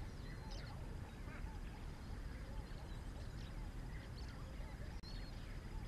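Several wild birds calling: short high chirps and whistles, with repeated lower curved calls, over a steady low rumble.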